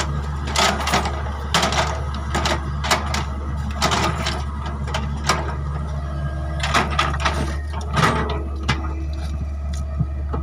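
Excavator engine running steadily, with irregular short clanks and squeaks of the machine working.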